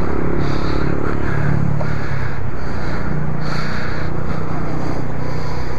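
Honda CB1000R's inline-four engine running steadily at low revs.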